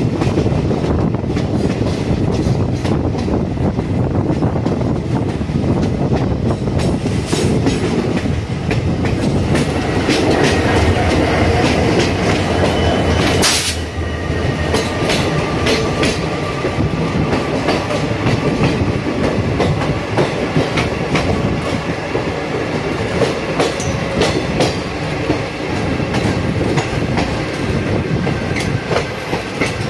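Running noise of a moving train heard from on board: a steady rumble with the clickety-clack of wheels over rail joints as it runs past a standing goods train. A sharp knock sounds about halfway through, after which the running noise is slightly quieter, with a faint thin squeal.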